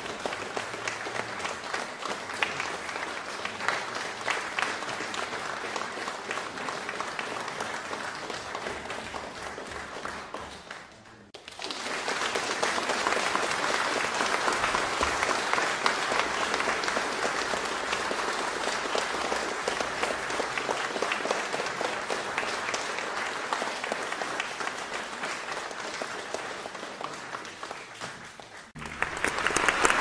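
Audience applause, many people clapping. One round dies away about ten seconds in, then a louder round starts and fades out near the end.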